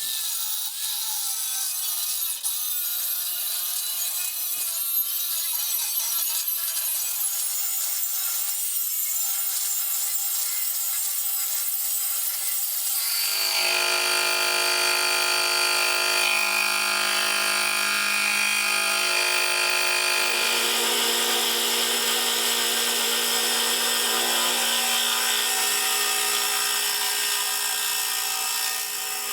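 A power tool running and cutting: a rough rasping for about the first 13 seconds, then a steady high-pitched whine that steps up slightly in pitch about 20 seconds in.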